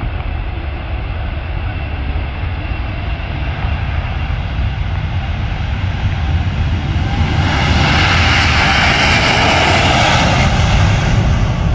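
Boeing 767's twin turbofan engines at takeoff power during the takeoff roll, a steady jet noise that grows louder as the airliner approaches, peaking as it passes close by about eight to eleven seconds in.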